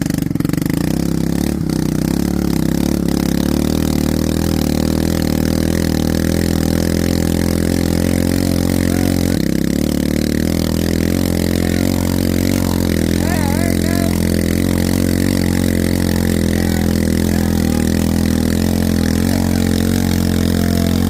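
A Honda off-road vehicle's engine running steadily under load as it churns through muddy sand.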